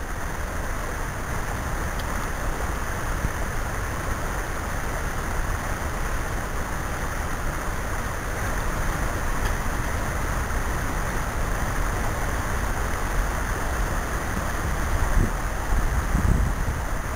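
Steady rushing of shallow creek water, with a few low rumbles near the end.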